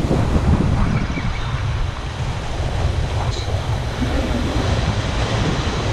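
Steady wind rumbling on the microphone over the wash of ocean surf breaking against the jetty's rocks and pilings.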